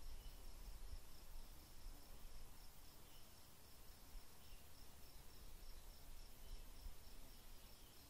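Faint outdoor ambience: an insect, cricket-like, chirping in a steady pulsing rhythm at a high pitch, over a low rumble.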